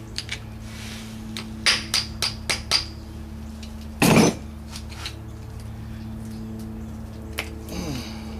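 Metal tool striking a stuck part on a transmission: a quick run of sharp metallic taps with a ringing edge, then a short, louder burst of noise about four seconds in, over a steady background hum.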